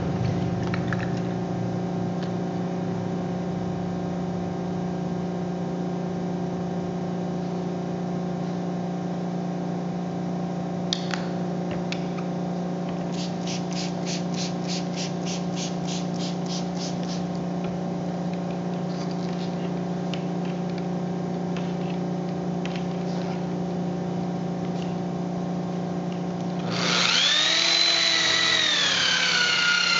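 A Makita electric polisher with a yellow wool pad starts near the end with a rising motor whine that dips slightly and holds steady as the pad runs on the compound-covered solid-surface countertop. Around the middle, a spray bottle mists water in about a dozen quick squirts, over a steady hum.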